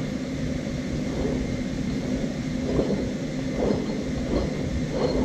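A steady low machine hum with a constant tone. From a little under 3 seconds in, a few faint, short sounds come as an Eaton supercharger's rotors are turned by hand through the snout, spinning smoothly.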